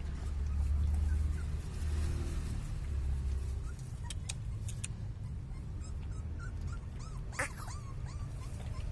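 Small puppies whimpering and yipping, with one louder yelp about seven seconds in, over a low rumble of street traffic that fades after the first few seconds.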